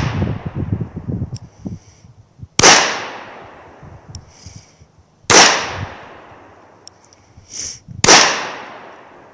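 Handgun fired three times, slow aimed shots about two and a half to three seconds apart, each a sharp crack with a long fading echo. Fainter sharp snaps fall between the shots.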